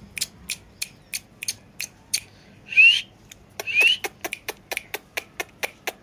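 Steady sharp clicking, about three clicks a second, with two short rising squeaky calls from an Indian ringneck parakeet near the middle.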